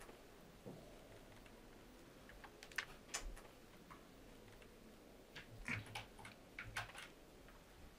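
Faint, irregular keystrokes on a computer keyboard: a few single taps, then a quicker run of clicks about five to seven seconds in.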